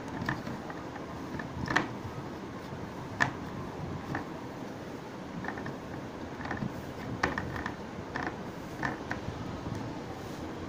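Axle-counter detection point's digital circuit card being handled and fitted into its slot connector on the motherboard: a string of irregular small clicks and scrapes, the card edge and plastic connector knocking and rubbing.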